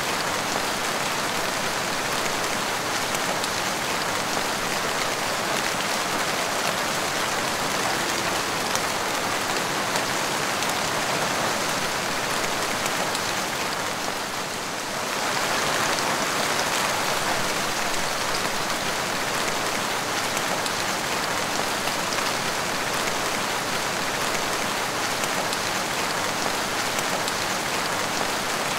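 Steady rain falling and splashing on a wet tiled porch floor, an even hiss that eases briefly about halfway through before returning to full strength.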